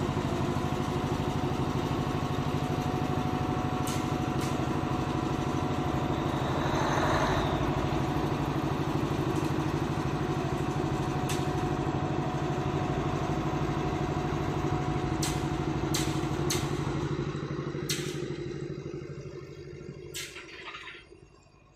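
Diesel engine of an Indian Railways OHE inspection tower car running steadily, with a few sharp clicks along the way. Its sound fades away over the last few seconds.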